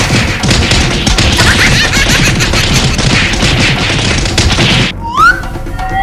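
Cartoon brawl sound effect: a dense, loud clatter of rapid crashes and thwacks lasting about five seconds, cutting off suddenly. Two short rising whistle-like glides follow near the end.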